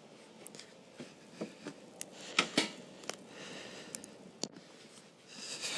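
Scattered short clicks and knocks, the loudest two about two and a half seconds in, then a brief rustling hiss near the end.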